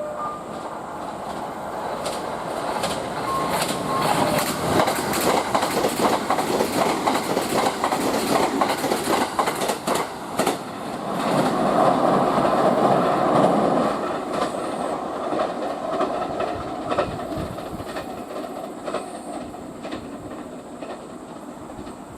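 Train passing through a station: a few short chime tones near the start, then a rapid clickety-clack of wheels over rail joints that builds up. About eleven seconds in, it gives way to a louder steady running noise that slowly fades as the train moves away.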